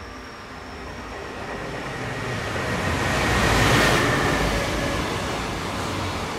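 EF510 electric locomotive hauling a container freight train through a station at speed. The rumble grows as it approaches and is loudest about four seconds in as the locomotive goes by, then settles into the steady rolling noise of the container wagons passing.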